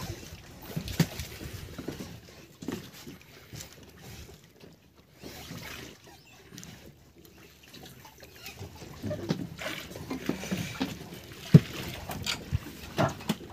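Water sloshing against the hull of a drifting fishing boat, with scattered knocks and handling noise on deck and one sharp knock near the end.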